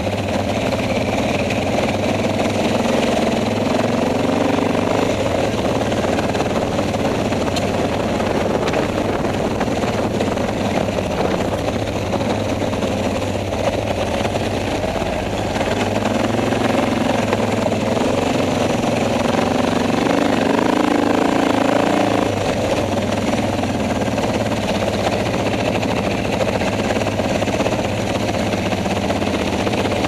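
Suzuki DR650 single-cylinder four-stroke motorcycle engine running steadily while riding a rough dirt trail, its revs rising and falling a few times with the throttle.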